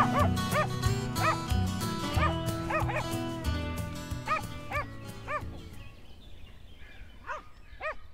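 Small dog barking in short, high yaps, about two a second, over background music that fades out around six seconds in; the yapping carries on after the music has gone.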